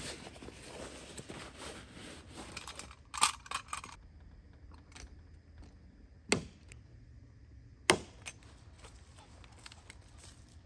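Rustling of a nylon gear bag being handled, then a short clatter of rattling clicks about three seconds in, and two sharp knocks about a second and a half apart in the middle.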